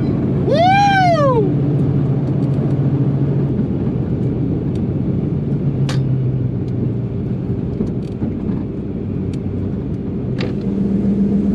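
Twin-turbo Coyote 5.0 V8 Mustang running at low speed with a steady engine drone that steps up slightly in pitch near the end. About a second in there is a brief rising-then-falling tone.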